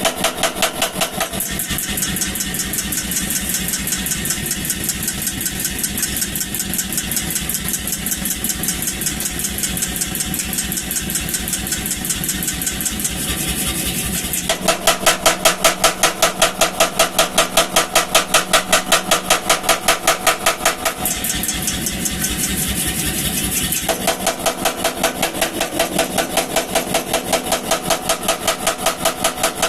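Power hammer pounding hot steel in a fast, steady run of blows while a poker is forged. The blows turn louder and more ringing about halfway through, ease off for a few seconds, then turn loud again near the end.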